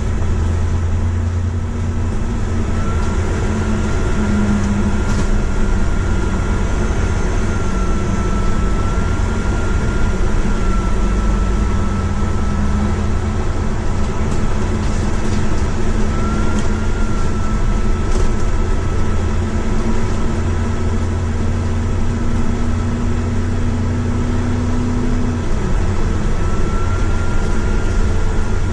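Double-decker bus driving along a road, heard from the upper deck inside: a steady low engine drone with road noise, a low hum that shifts pitch a few times and dies away near the end, and a thin steady whine above it.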